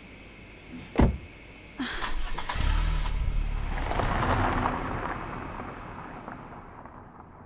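A car door slams shut about a second in, then the car drives off and passes close by, its engine and tyre noise rising quickly and then slowly fading away.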